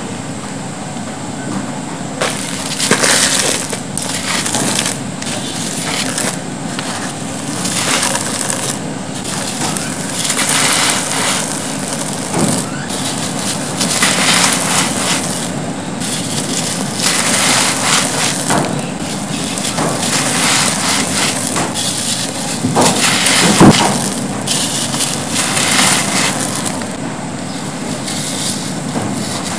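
Hands crushing and crumbling dry, gritty cement, with a continuous hiss of falling grit and powder and many crunches. One sharp crack comes about three-quarters of the way through.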